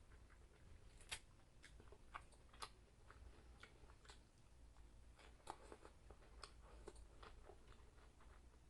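Faint chewing with scattered small clicks and crunches: a person eating.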